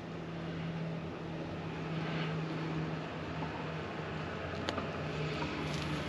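Steady low mechanical hum over a constant rushing background, with one short click a little before the end.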